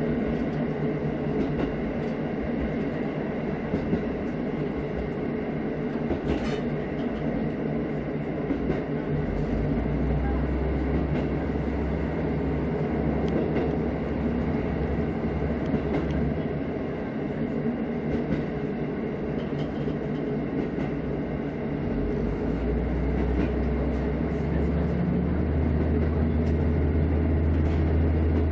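KiHa 54 diesel railcar running along the line, heard from inside its cab: a steady rumble of wheels on the rails under a low engine drone. The drone grows louder about ten seconds in and again for the last few seconds, and there is one brief high squeak a little after six seconds.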